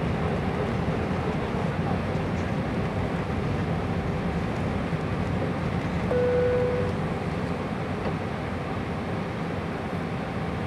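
Steady cabin noise of an Airbus A320 inside the cabin: engine rumble and airflow rush heard from a seat over the wing during the descent. A short steady tone sounds once, about six seconds in, and the noise eases slightly soon after.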